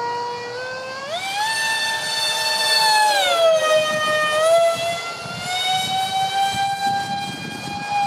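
Twin electric ducted fans of a Freewing Su-35 RC jet (5-blade rotors, 2600kv motors on 6S) screaming in flight. The high whine jumps up in pitch about a second in, drops back about halfway, then climbs slowly. The screech is made worse by vibration from cheap shaft adapters and fan mounts that have come loose.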